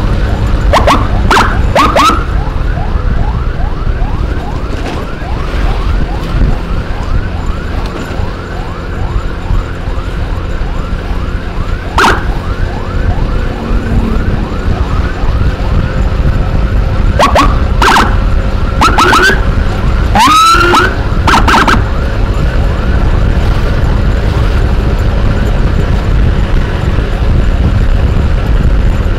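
Electronic emergency siren sounding in a rapid yelp of repeated rising sweeps, with several short sharp siren whoops near the start, at about twelve seconds and in a cluster about two-thirds of the way through, over a steady low rumble of riding noise.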